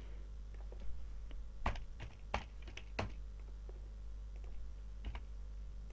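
Typing on a computer keyboard: irregular key clicks, with a few louder keystrokes between about one and a half and three seconds in and another near the end.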